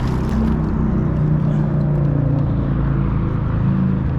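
Steady engine drone with a low hum that shifts slightly in pitch, over a hiss of background noise.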